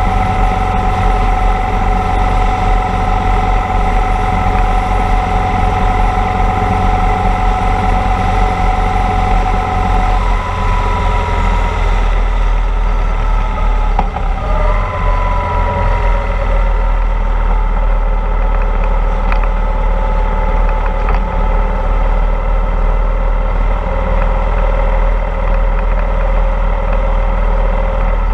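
Motorcycle engine running at road speed under heavy wind rush. The engine note shifts about ten seconds in, dips and then jumps higher about halfway, and sinks slowly after that as the bike eases off.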